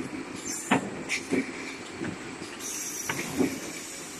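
Automatic aerosol-can case packer running: a series of sharp clunks and knocks as its pneumatic gripper head and cylinders move the cans, with compressed air hissing from about two and a half seconds in.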